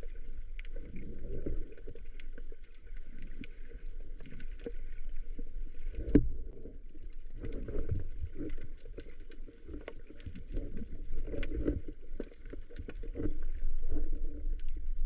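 Water heard through an underwater camera housing: irregular muffled sloshing and bubbling with many small scattered clicks.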